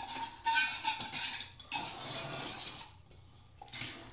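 Metal tub spout being screwed by hand onto its threaded pipe nipple: metal scraping and clinking on the threads, with short squeaks early on, dying away after about three seconds, then a single click near the end.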